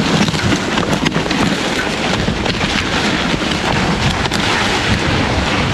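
Mountain bike riding fast down a bike-park trail: wind rushing over the microphone, tyre rumble on dirt, and a steady run of clicks and rattles from the bike.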